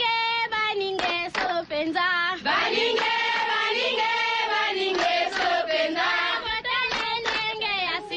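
Voices singing an African-style choral chant, with sharp percussive beats, played as a comedy sound drop on a radio show.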